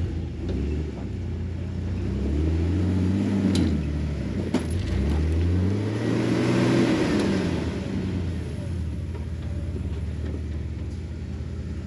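A 4x4's engine revving up and down several times as it works over an off-road trail obstacle, with a couple of sharp knocks about a third of the way in, then settling back to a steady low run.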